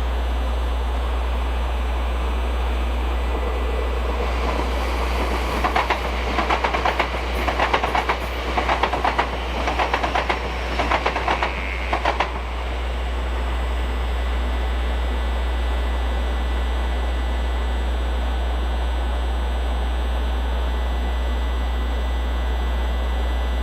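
A train passing, its wheels clicking over rail joints in quick groups for about seven seconds, over a steady low hum.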